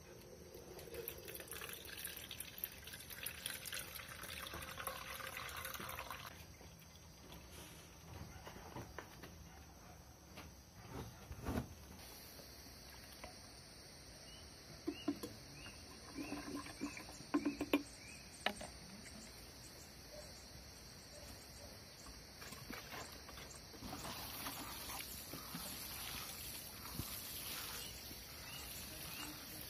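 Bokashi effluent running from the plastic spigot of a fermentation bucket and trickling into a glass jar, stopping about six seconds in. Near the end a watering can sprinkles diluted liquid onto garden soil.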